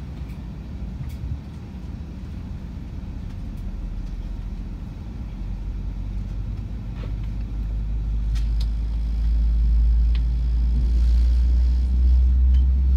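Low rumble of an Airbus A321's engines heard inside the cabin. It grows steadily louder from about halfway through, with a few faint clicks.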